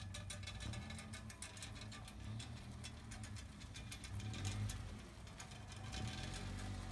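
A small sedan driving slowly past: a low engine hum that is loudest as it passes about four to five seconds in, over a steady scatter of light clicks.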